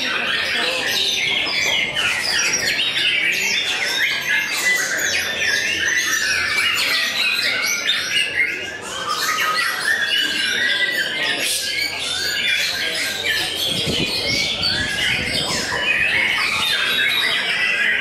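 White-rumped shama (murai batu) singing a fast, varied, unbroken stream of whistles, chirps and trills. It is in contest form.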